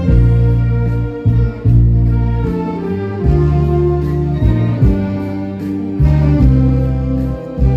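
Saxophone ensemble playing a slow melody in long held notes over a deep bass line that moves every second or so.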